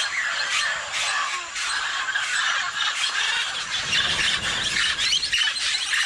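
A large flock of mealy parrots squawking over one another in a dense, unbroken chorus of overlapping calls.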